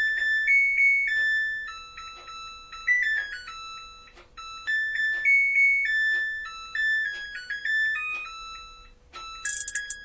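Washing machine's electronic beeper playing a melody of clear single beep notes, with a faint steady hum underneath. Near the end a brighter, busier sound joins in.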